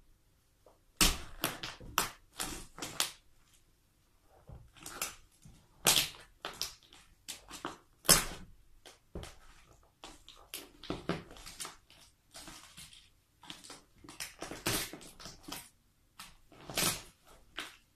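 Toy cars being crushed under high heels: an irregular run of sharp cracks and crunches starting about a second in.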